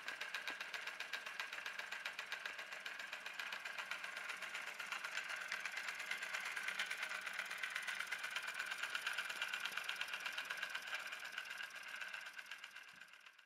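Twin-cylinder live steam engine model running fast: a rapid, even ticking clatter from its cylinders and flywheel, fading out near the end.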